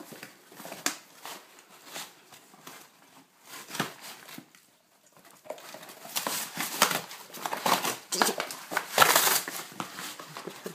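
Great Dane tearing and crushing a cardboard box with its mouth: crinkling, crumpling and ripping of cardboard in irregular bursts. Quieter at first, a short pause about halfway, then louder, denser ripping.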